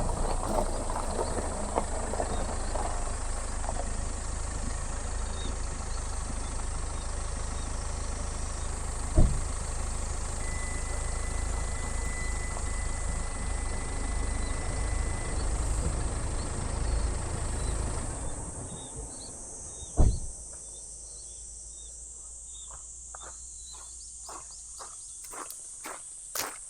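A steady low engine-like rumble that stops about two-thirds of the way in, over a constant high hiss, with two sharp thumps.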